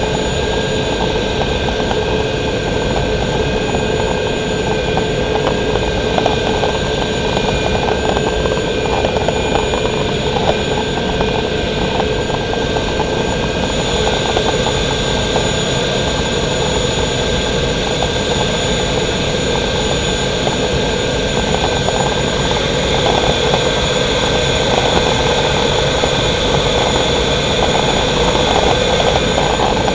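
Caterpillar gas turbine of a Sanger race boat running steadily: a jet-like whine of several high, constant tones over a broad rush of noise, with the highest tone growing stronger about halfway through.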